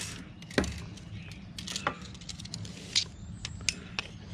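A handful of sharp clicks and taps, spread over a few seconds, from a rubber regulator hose and a steel tape measure being handled.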